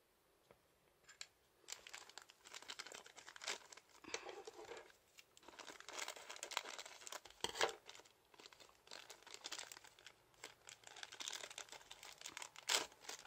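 Thin clear plastic packaging bag crinkling as it is handled and cut open with scissors, starting about two seconds in, with a few sharper snaps along the way.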